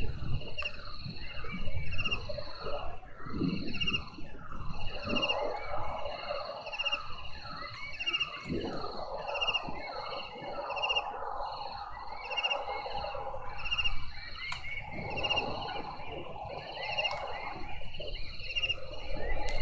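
Night chorus of calling frogs and insects: a short pulsed chirp repeats regularly, about every three-quarters of a second, with many quick falling chirps layered over it and a low rumble underneath.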